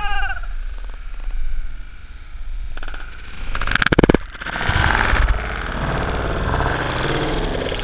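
A loud splash about four seconds in as a person plunges into a pool beside the camera, followed by muffled churning and rumbling water once the camera goes under the surface.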